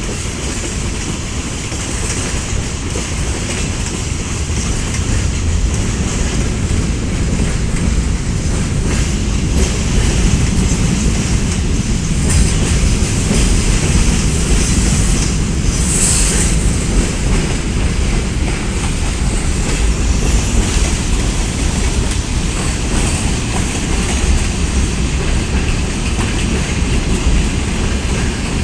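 Freight train rolling on the rails, its wagons' wheels running with a steady low rumble and clickety-clack over the rail joints. Partway through there is a brief high-pitched sound.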